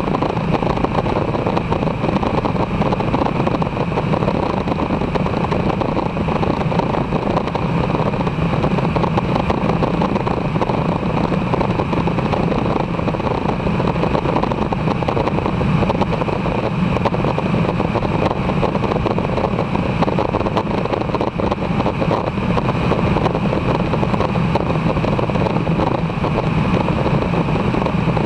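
Aeroprakt Foxbat light aircraft's engine and propeller running at steady power in flight, an even drone with air rushing past the microphone.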